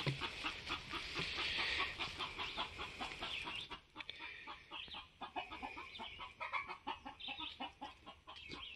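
Chickens clucking in a run of short, repeated calls, several a second, fainter in the second half.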